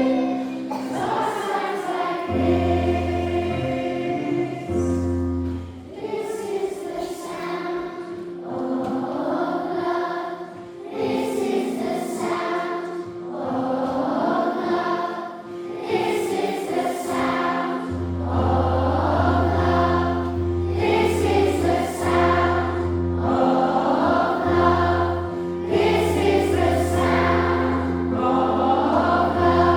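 Massed children's choir singing a song with instrumental accompaniment that holds long sustained chord and bass notes; the deep bass drops out for a while and comes back about two-thirds of the way through.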